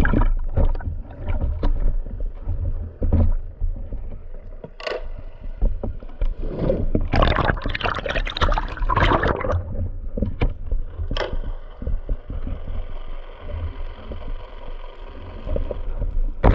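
Water rushing and bubbling around a submerged action camera, with heavy low rumbling and sharp knocks and scrapes against its housing. A long churning burst of bubbles comes in the middle. From about two-thirds of the way through, a faint steady hum joins in.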